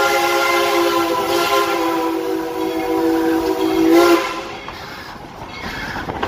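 Steam locomotive's whistle blowing one long, steady blast that cuts off suddenly about four seconds in, followed by the quieter rumble of the train rolling along.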